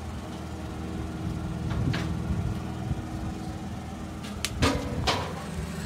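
A steady low mechanical hum, like an engine or motor running, with a few sharp knocks or clatters about four and a half to five seconds in.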